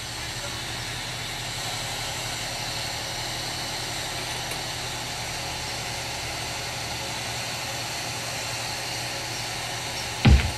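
Glassworking bench torch burning with a steady hiss while glass is worked in its flame. Music with heavy beats starts near the end.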